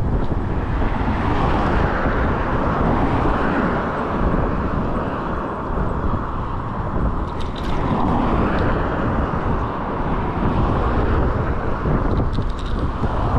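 Wind buffeting the microphone in a loud, steady rush, with a few faint high clicks about halfway through and again near the end.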